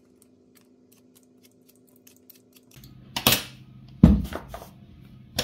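Metal vegetable peeler scraping the skin off a sweet potato in faint short strokes. Then come a few loud knocks on a wooden worktop about three and four seconds in, the second a dull thump, as the peeler and potato are handled and put down.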